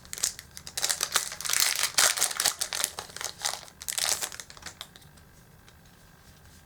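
Foil booster-pack wrapper crinkling as a trading-card pack is handled and opened, a dense crackle that dies away about four and a half seconds in.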